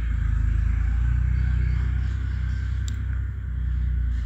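Pot of mushroom curry broth at a rolling boil: a steady low rumble with a bubbling hiss over it. There is a light click about three seconds in.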